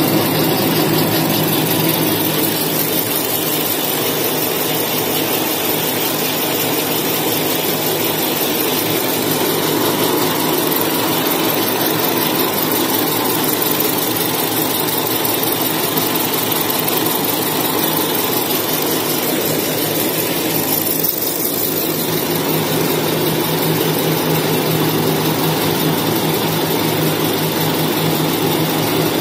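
XY-TQ-G semi-automatic maxi roll cutting and making machine running steadily: a continuous mechanical drone with a low hum underneath.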